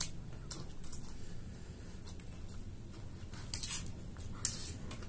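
Small metal spoons scraping and clinking against plates of chatpate as the food is scooped up, a few short sharp scrapes, the loudest about three and a half and four and a half seconds in.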